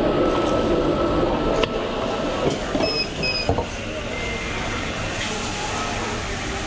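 Espresso machine steam wand hissing as milk is steamed in a stainless steel jug, over the clatter of a busy café bar. There are a few sharp clinks, and two short high beeps about three seconds in.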